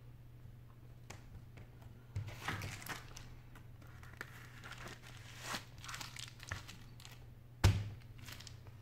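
Plastic bubble wrap crinkling and rustling in irregular bursts as it is wrapped around a phone, then one sharp thump near the end as the wrapped phone is pressed down.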